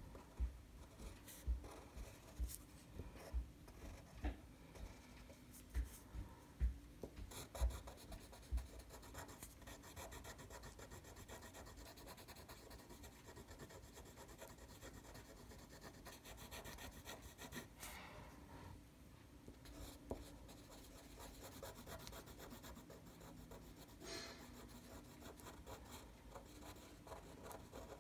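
Black felt-tip marker scribbling on paper, with rapid back-and-forth strokes filling in a solid black area. Soft low knocks come now and then in the first several seconds.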